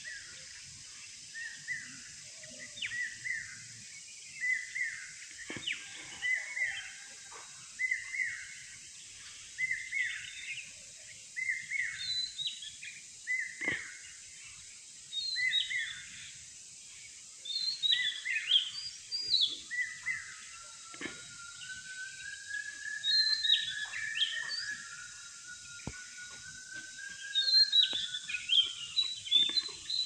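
Several birds calling and singing. One bird repeats a short note about once a second through the first half, others add higher chirps, and a long wavering song runs through the second half, all over a steady high hiss.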